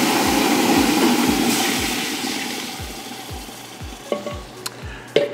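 Chicken broth pouring from a pitcher into a stockpot of hot browned roux, a rush of liquid hitting the pot that fades out over about three seconds as the pitcher empties. A few light clicks follow near the end.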